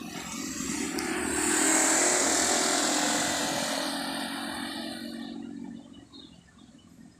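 A motor vehicle passes close by: its engine and road noise swell to a peak about two seconds in, then fade away over the next few seconds.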